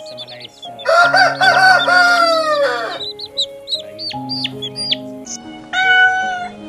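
A rooster crowing once, a long call about two seconds long that starts about a second in and falls away at the end, over high repeated chirps and background music with held notes. Near the end a shorter single call sounds.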